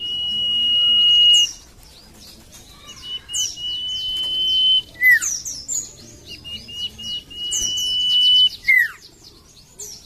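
Common iora (cipoh, sirtu) singing: long, steady high whistles held for about a second, three times, with quick falling notes and high chirps in between.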